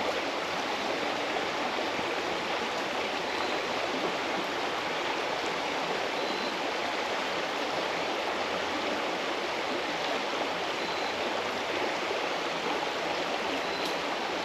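Shallow rocky creek running over stones, a steady rush of water.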